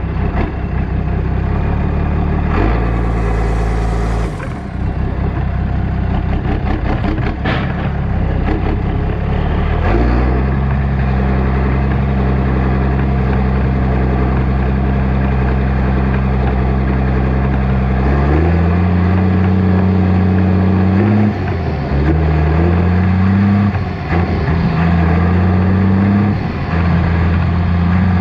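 New Holland 7840 tractor's six-cylinder diesel running loud through a straight-pipe exhaust while the tractor drives on. Engine speed steps up about a third of the way in and rises again past halfway, with two brief dips as the throttle is eased and reopened.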